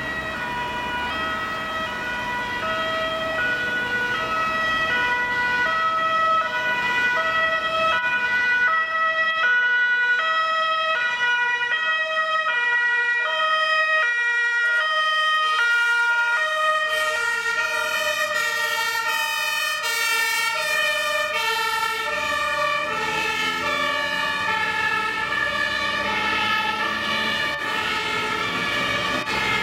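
Two-tone sirens (Martinshorn) of several German fire engines sounding at once, each alternating between a high and a low note, the horns overlapping out of step as the convoy approaches. Road traffic runs underneath.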